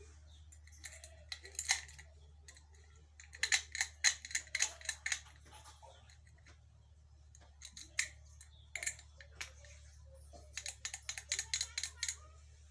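A round steel padlock being handled and turned in the hands: quick runs of small metallic clicks and rattles, in three bursts, over a faint low hum.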